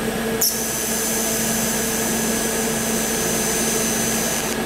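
TIG welding arc on steel, struck with a sharp click about half a second in, then a steady high hiss with a thin high whine while a large tack is built up with filler rod. It cuts off abruptly just before the end.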